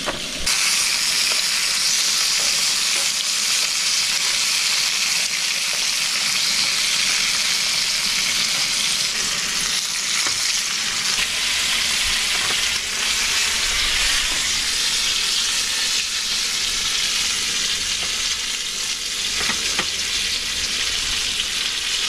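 Pink salmon steaks frying in a hot pan, a steady sizzle that swells about half a second in.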